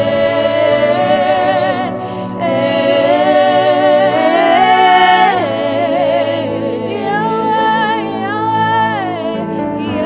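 Spontaneous worship singing: a solo voice holds long notes with vibrato and glides between them, over a sustained low accompaniment.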